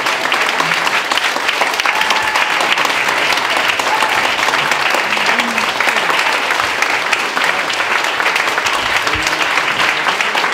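Sustained applause from a room of people clapping steadily, with a few voices mixed in.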